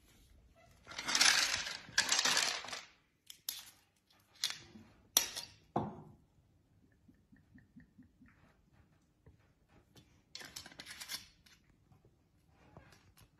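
Glass bottle being lifted out of ice cubes packed in a plastic prosthetic leg socket: two spells of rustling and scraping, then a few sharp glass-on-ice clinks, and a short rustle near the end. All of it faint.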